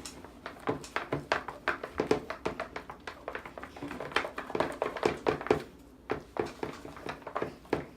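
A stirrer working through a thick batch of glue and shaving foam in a bowl for fluffy slime, knocking and scraping against the bowl in quick, irregular clicks that thin out after about six seconds.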